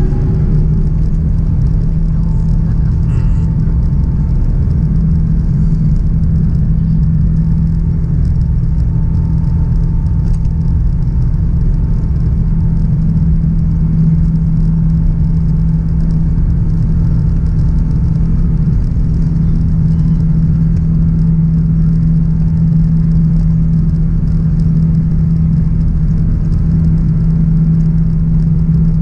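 Airbus A350-900 cabin noise while taxiing, its Rolls-Royce Trent XWB engines heard from inside the cabin: a steady low rumble with a strong steady hum and a faint higher tone above it.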